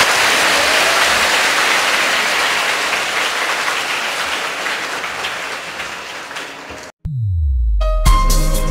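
A large crowd applauding, the clapping slowly fading before it breaks off abruptly about seven seconds in; music starts near the end.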